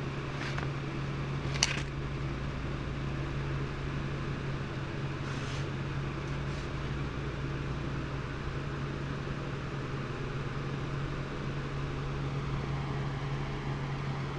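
Steady low mechanical hum with a background hiss, and a few faint light clicks, the sharpest about a second and a half in.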